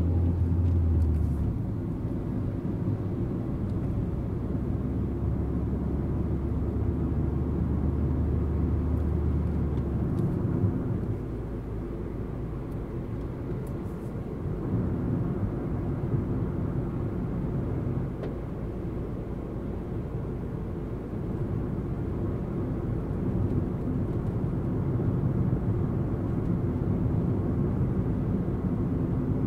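Steady low rumble of a car driving on a paved country road: tyre and road noise, with a low hum that drops away about ten seconds in.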